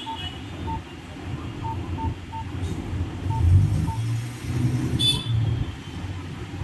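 Short single-pitch key beeps from a Nokia C3 phone, seven of them at irregular intervals, as someone steps through its menu. They sound over a low background rumble, with a brief noisy burst about five seconds in.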